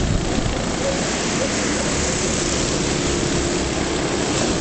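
Engines of several small racing cars running as they lap an oval track, a steady mixed din with one engine's drone standing out more clearly in the second half.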